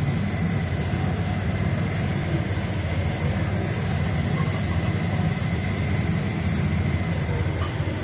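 A steady low mechanical drone with a faint, steady high tone above it, even throughout.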